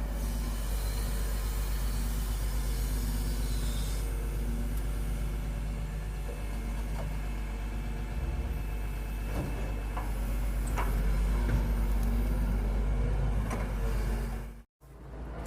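Excavator's diesel engine running steadily, with a few light knocks about ten seconds in. The sound drops out abruptly for a moment near the end.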